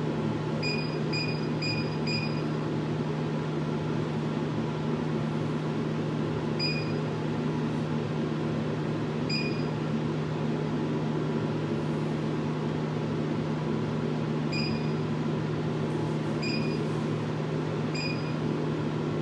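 Touchscreen of a Dixie Narco BevMax Media vending machine beeping at each press: four quick beeps as a PIN is keyed in, then single beeps every few seconds while stepping through the operator menus, over a steady low hum.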